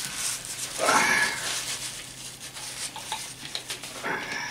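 A man blowing his nose into a tissue, with a loud blow about a second in.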